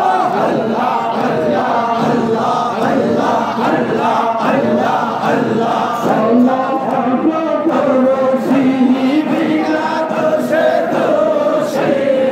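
A large group of men's voices chanting a Sufi zikir together, a steady melodic sung chant.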